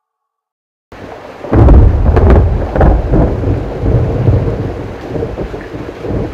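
Thunderstorm sound effect: after about a second of silence a rain hiss comes in, then a loud crack of thunder and a long rolling rumble that slowly fades and swells again near the end.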